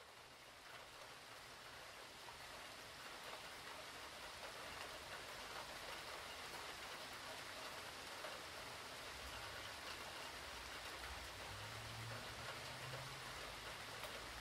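Steady rain falling, a dense even hiss that fades up over the first couple of seconds. A low rumble comes and goes in the second half.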